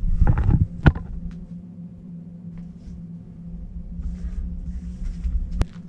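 Low thumps and rubbing from footsteps and gear jostling against a body-worn camera, with a sharp click about a second in and another near the end, over a steady low hum.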